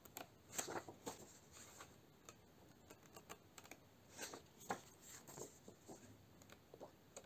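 Pages of a thin paperback colouring book being turned by hand: faint paper rustles and flicks, once shortly after the start and again a little past the middle.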